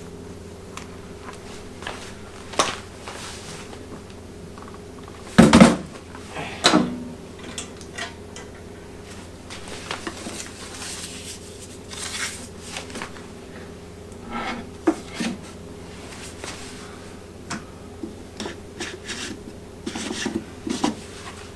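Welder accessories and packaging being handled and set down. There are scattered clinks, knocks and rubbing, with a loud double knock about five and a half seconds in, over a steady low hum.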